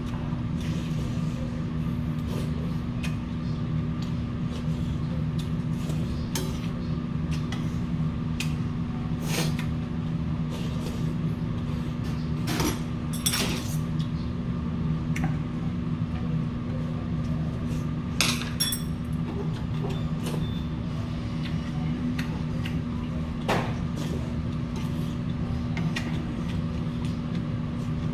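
A steady low hum, like an idling engine or machine, runs throughout. Over it come a few scattered clinks of metal chopsticks and spoon against brass bowls, with eating sounds.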